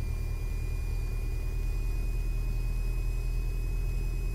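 Cessna 172's four-cylinder piston engine running steadily, heard from inside the cabin as a low drone, with a thin steady high-pitched tone coming in at the start.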